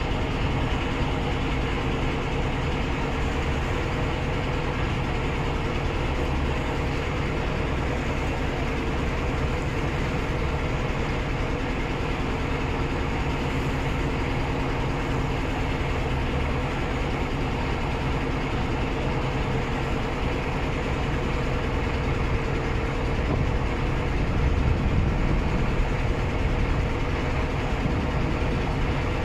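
Paddle steamer under way: a steady engine drone with a constant hum and low rumble, over the rush of water along the hull. It swells slightly near the end.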